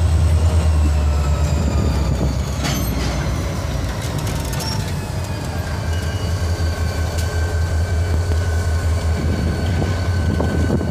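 EMD SD40-2 diesel locomotives pulling a freight train, their 16-cylinder two-stroke engines running with a steady deep rumble. Thin high-pitched wheel squeal from the rails slowly falls in pitch.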